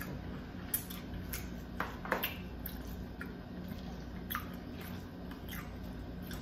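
Close mouth sounds of chewing soft spaghetti squash with meat sauce and cheese: scattered wet smacks and clicks, a cluster of them about two seconds in. A metal fork digs and scrapes strands from a roasted squash half. A faint steady low hum runs underneath.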